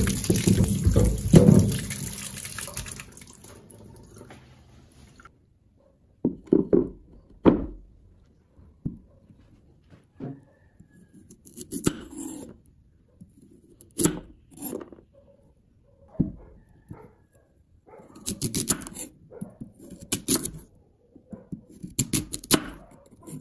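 Tap water running into a stainless steel sink while sweet potatoes are rubbed clean under it, fading out after about five seconds. Then a kitchen knife slicing through raw sweet potato and knocking on a thick wooden chopping board, one cut every second or two.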